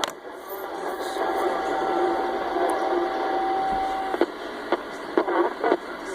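Radio receiver hissing with static. A steady whistling tone comes in about a second in, holds for about three seconds and cuts off, and a run of sharp crackles and clicks follows.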